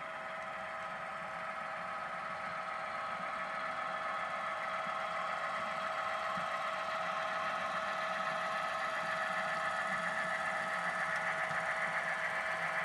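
Model diesel locomotive running with its train, a steady engine hum of several held tones that grows slowly louder as it draws near.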